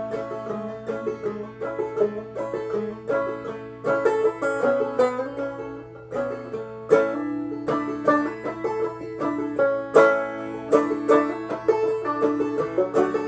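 Five-string banjo played clawhammer style: an instrumental break of quick plucked notes and brushed strums, each note sharp and decaying fast.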